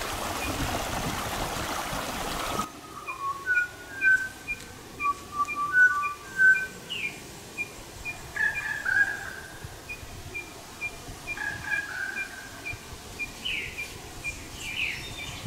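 Wild birds calling: clear whistled notes, several sliding downward, over a steady high pip repeated about twice a second. For the first few seconds a rushing hiss, which cuts off abruptly.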